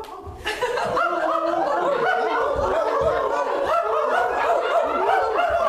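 A group of people vocalising together in a dog-imitation voice exercise: many overlapping sliding calls, mixed with laughter.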